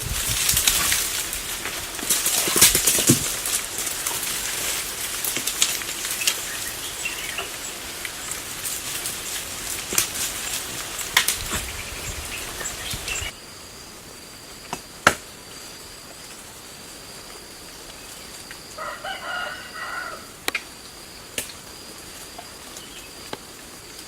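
Loud rustling and crackling, like leaves and twigs being handled, with many sharp snaps. It stops abruptly about thirteen seconds in, giving way to a steady high insect drone with a short bird call about nineteen seconds in and a few single snaps.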